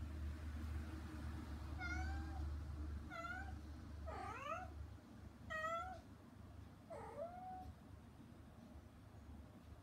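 Tortoiseshell mother cat calling to her kittens through a closed door: five short meows, roughly one every second or so.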